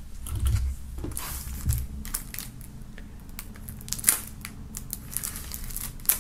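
Plastic shrink-wrap on a CD jewel case crinkling and crackling as a knife blade is run along the case's edge to slit it, with handling clicks. A couple of dull knocks come in the first two seconds as the case is picked up off the wooden table, and a sharp click about four seconds in.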